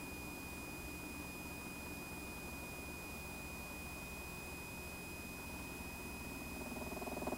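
AH-64A Apache helicopter cockpit noise: a steady high-pitched whine over a low, even rumble. About six and a half seconds in, a louder, rapidly pulsing sound builds up.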